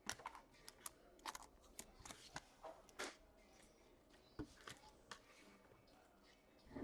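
Faint clicks and rustles of trading cards being handled by hand, slid and flipped one over another, in a string of short, irregular ticks that thin out after about three seconds.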